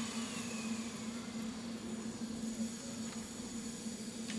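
Double Fairlie steam locomotive standing in steam: a steady low hum with a faint hiss, and a light click near the end.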